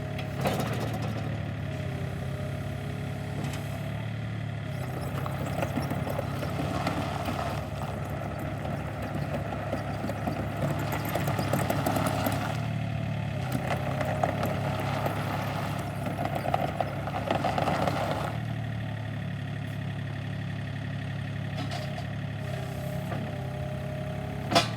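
SANY mini excavator's diesel engine running steadily. From about five seconds in until near eighteen seconds it runs louder and busier, as under working load, before settling back to an even idle.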